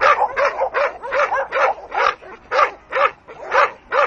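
Dogue de Bordeaux barking over and over in a steady, fast series, about two or three barks a second, worked up in attack training.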